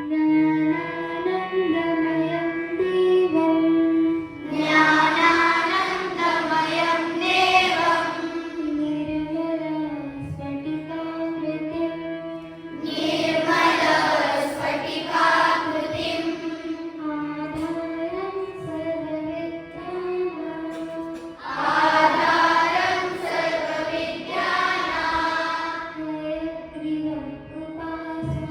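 A group of children singing in unison over a steady, sustained instrumental drone. The voices come in as three louder sung passages, about a third of the way in, near the middle and toward the end, with the held accompaniment carrying on between them.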